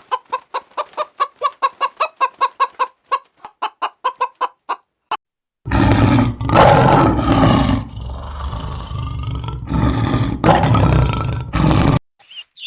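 A chicken clucking rapidly, about six short clucks a second, for about five seconds. After a brief gap comes a loud, rough, noisy sound in two long stretches that ends abruptly.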